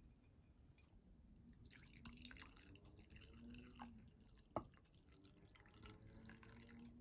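Brewed coffee being poured from a glass server into a ceramic mug: a soft trickling and splashing. About halfway through there is one sharp click.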